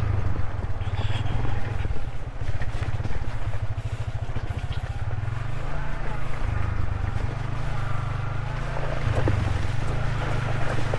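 Yamaha Vixion's single-cylinder four-stroke engine running steadily at low revs under way, a low note made of rapid, even firing pulses.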